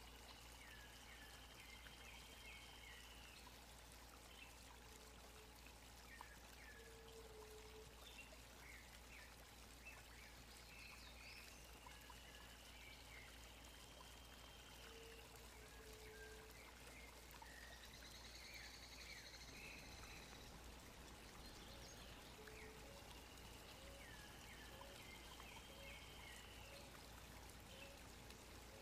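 Faint, steady hiss like running water. A distant bird's call repeats about every eleven seconds: a thin drawn-out high whistle with short chirps under it.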